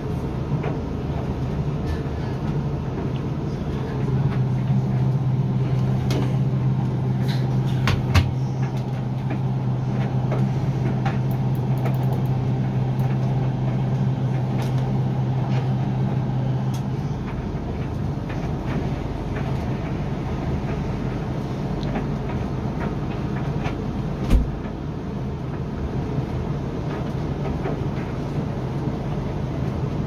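Hoover washer-dryer tumble-drying a load: the drum turning with a steady motor and fan hum, louder from about four seconds in until just past halfway. Light clicks from the tumbling clothes, and two dull thumps, one near a third of the way in and one later, as the load drops in the drum.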